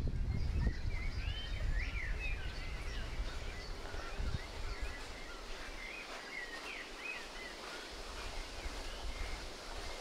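Outdoor ambience of birds calling in short, gliding chirps, with a low wind rumble on the microphone that eases off about halfway through.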